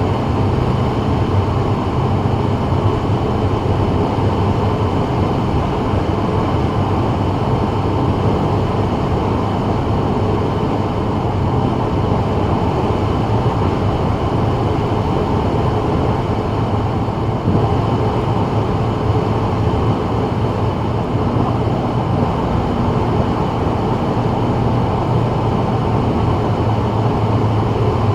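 Steady in-car road noise from a 2024 Subaru WRX cruising on a wet freeway: tyre hiss on the wet road over a low, even drone, unchanging throughout.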